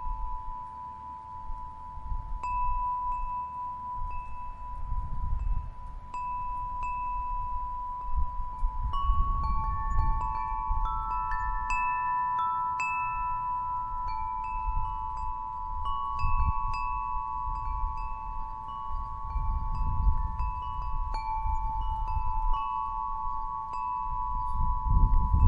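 Wind chimes ringing, with several long-held tones overlapping and short higher pings struck at irregular moments, over a low rumble that swells and fades every few seconds.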